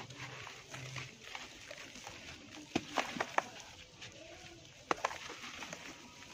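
A lump of dry dirt being squeezed and crumbled by hand under water in a plastic basin, with wet crumbling and sloshing. A quick run of sharp crackles about three seconds in, and two more a couple of seconds later.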